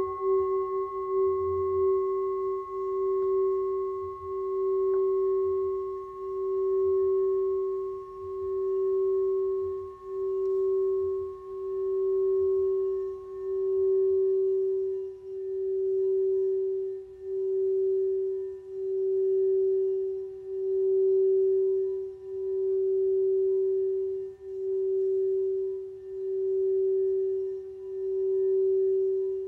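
A singing bowl rings out after a strike, holding one low tone that pulses, swelling and fading about every second and a half. A higher overtone fades away about halfway through.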